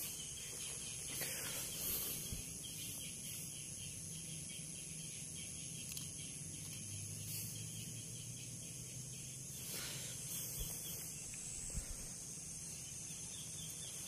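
Outdoor field ambience: a steady high-pitched chorus of insects such as crickets, with a few faint brief rustles.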